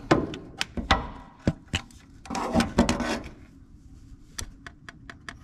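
A flashlight knocking and scraping as it is worked up among the wiring harness under the truck, then tapping several times in quick succession on the transfer case switch near the end.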